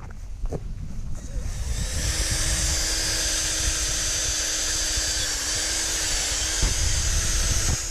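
Cordless drill running at a steady speed, boring into a wooden fence post. It starts about two seconds in, dips briefly partway through, and cuts out near the end.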